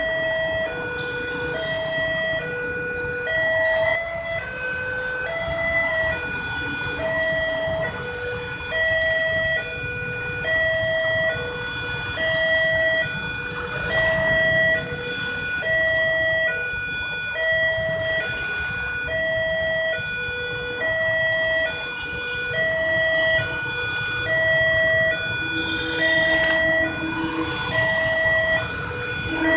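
Railway level-crossing warning siren sounding through a horn loudspeaker, alternating between a high and a low tone about once a second each. It is the alarm that warns a train is approaching. A lower steady tone joins briefly near the end.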